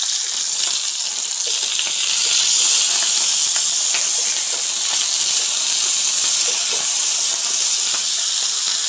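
Banana-leaf parcels of mackerel frying in oil on a hot tawa: a loud, steady sizzle with small crackles.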